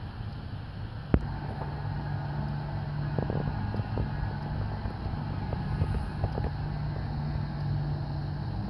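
Steady background noise of road traffic, with a low hum that sets in about a second and a half in. A single sharp click about a second in.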